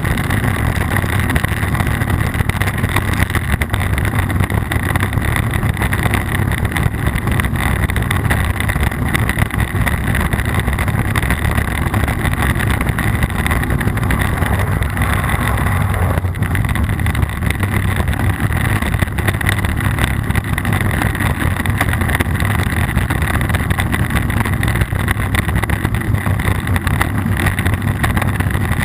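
Steady loud rumble and clatter picked up by a low-mounted GoPro action camera on a downhill ride in the rain: wind buffeting and trail vibration rattling the camera housing, with dense small knocks throughout.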